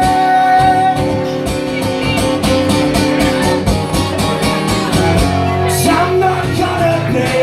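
Live rock band playing: guitars and drums keeping a steady beat, with a sung note held over about the first second.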